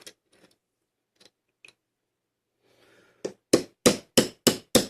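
Hammer striking a punch to drive a pin out of a PacLock TL81A trailer padlock resting on a small anvil: six quick, sharp metallic strikes about three a second, starting about three seconds in. A few faint handling clicks come before them.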